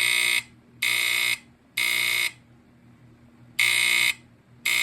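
FireX FXC-1 smoke alarm's AC buzzer sounding a loud, harsh buzz in a code-3 (temporal-three) pattern. There are three half-second buzzes, a pause of about a second, then two more.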